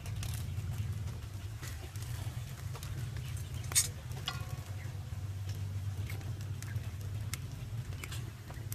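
Hands picking and snapping tender green shoots and dropping the pieces into a stainless steel bowl: scattered light snaps and ticks, with one sharper click just before the middle, over a steady low rumble.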